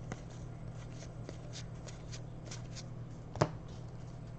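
Basketball trading cards being slid and flipped by hand, a run of soft swishes and light clicks with one sharper snap about three and a half seconds in, over a low steady hum.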